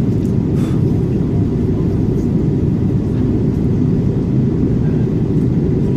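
Steady low rumble inside the cabin of an Airbus A330-300 airliner: engine and airflow noise.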